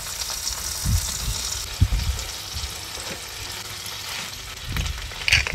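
Halved lobsters sizzling as they fry in a frying pan, a steady hiss. A few dull knocks and, near the end, quick clicking and scraping as a wooden spatula and fork turn them in the pan.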